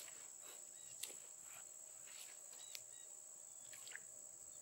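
Crickets trilling faintly as one steady high-pitched drone, with a few faint clicks about a second in, near three seconds and near four seconds.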